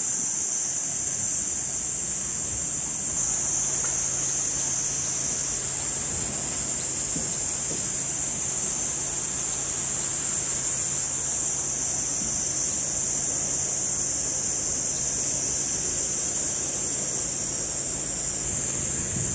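Chorus of cicadas: a steady, unbroken high-pitched insect drone, with a faint low hum underneath.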